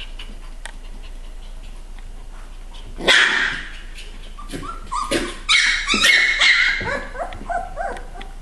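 Three-week-old Siberian husky puppies yipping and squealing as they play-fight: a sharp yelp about three seconds in, then a string of short, high yips and whines.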